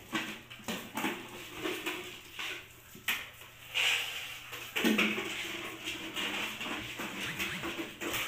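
Pocket bully puppies play-fighting and tugging at a plastic container on a concrete floor: scattered knocks, scrapes and rattles of plastic, with scampering paws and puppy vocalising. The sound is busiest around the middle.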